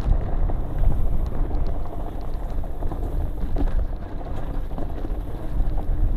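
Wind buffeting a bike-mounted camera's microphone as a mountain bike rolls downhill over loose rock, with tyre crunch and scattered small clicks and rattles from the bike.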